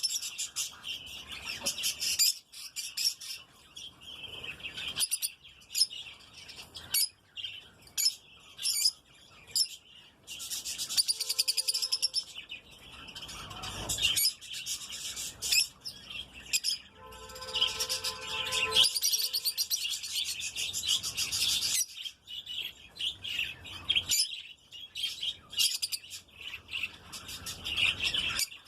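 Lutino lovebird chicks chirping continuously in rapid, high-pitched calls, with two longer, louder bouts about eleven and seventeen seconds in.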